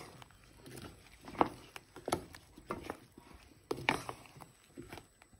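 Wooden spoon stirring chopped apples in a metal pot, with irregular knocks and scrapes as the spoon and apple pieces hit the pot, a few times a second.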